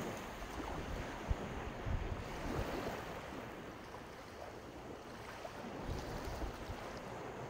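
Sea surf washing onto the shore in a steady hiss, with a few light gusts of wind buffeting the microphone.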